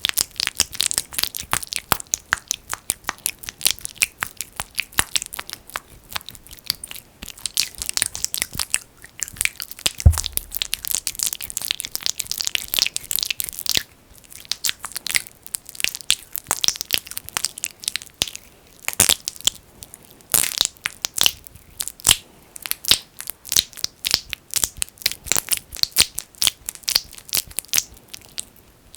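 Thick petroleum jelly (Vaseline) worked between fingers close to the microphone, giving a dense run of quick sticky crackles and clicks with a few brief pauses. One low thump about ten seconds in.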